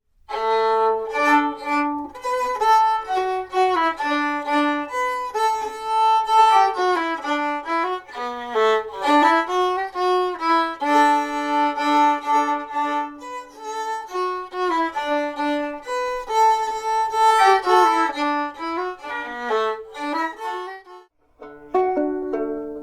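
Violin playing a lively melody of quick notes, which stops about 21 seconds in; a short gap is followed by a new passage of plucked strings near the end.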